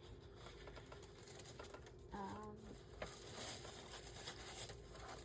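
Faint rustling and light taps of paper being handled on a craft desk, with a brief hum of a voice a little after two seconds in.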